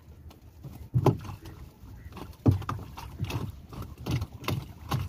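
Water splashing and sloshing at a small boat as a wet fishing net is hauled hand over hand out of the lake, in irregular splashes, the loudest about a second in and about two and a half seconds in.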